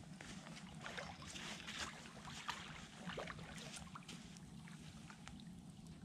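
Faint splashing and sloshing of shallow water as a hooked catfish is drawn in and thrashes at the surface at the bank's edge, busiest in the first half.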